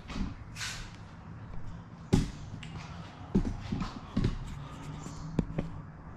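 Handling noise as a camera is picked up and repositioned: a brief rustle, then a series of sharp knocks and clicks.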